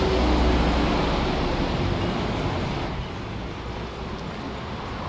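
Street traffic: a motor vehicle goes by close with a low rumble, its engine note slowly falling. About three seconds in the sound drops to a quieter, steady city-street noise.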